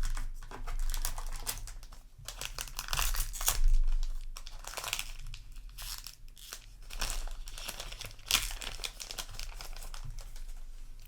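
Foil booster pack wrapper crinkling and tearing in the hands, with irregular rustles and scrapes of cards being handled; the loudest stretch comes a little before four seconds in.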